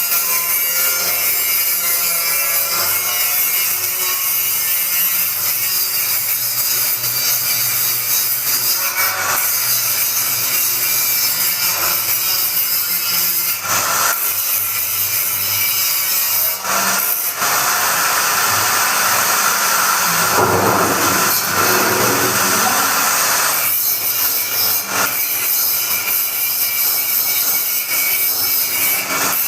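A heavy-duty blender running continuously, its motor and blades grinding the contents with a harsh, steady noise. Around the middle the sound grows thicker and fuller for several seconds, then settles back.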